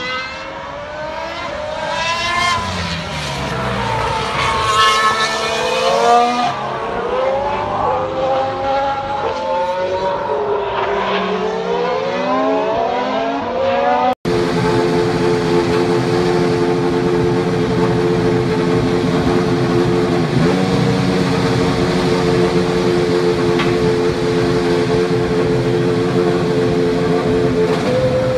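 Formula 1 car's turbocharged V6 engine running on track, its pitch sweeping up and down through gear changes and throttle. After an abrupt cut about halfway, a steady engine note holds at an unchanging pitch.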